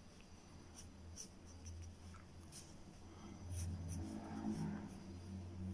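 Pencil lead scratching on paper in short, separate strokes as lines are sketched, faint, over a steady low hum.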